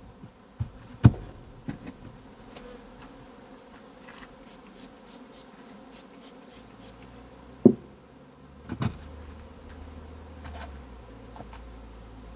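Honeybees buzzing steadily over an open hive, its frames exposed. A few sharp knocks are heard, about a second in and twice around eight to nine seconds in.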